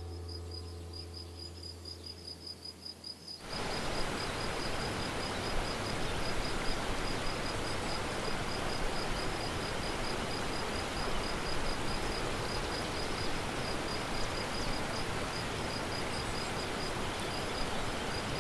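Insect chirping in a steady high rhythm, about four chirps a second, fading out near the end. A low music drone dies away in the first few seconds, and at about three and a half seconds a steady rushing outdoor noise comes in and stays.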